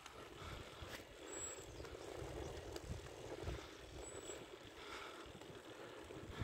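Faint, uneven wind rumble on the microphone with a steady rush of bicycle tyres rolling on asphalt.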